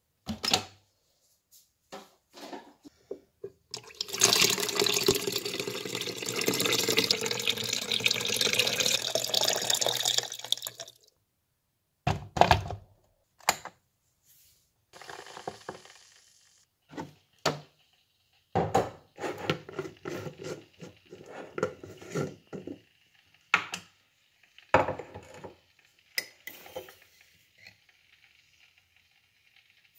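Water running from a kitchen tap for about seven seconds, filling an electric kettle. After that come a few separate knocks and clinks as the kettle is set down and a spoon scoops instant coffee from a glass jar into a mug.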